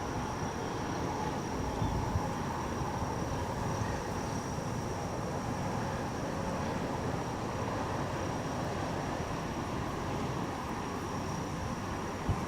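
Strong wind buffeting the microphone: a steady low rumbling rush with a faint, steady high tone above it.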